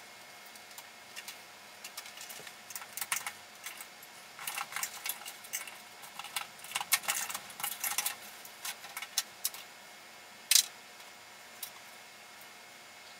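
Light clicks and rattles of wires and small metal and plastic parts being handled in an opened fluorescent light fixture, in irregular clusters, with one sharper, louder click near the end.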